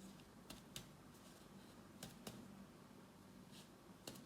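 Faint finger taps on the chest, mostly in pairs about every second and a half: percussion of the heart's borders.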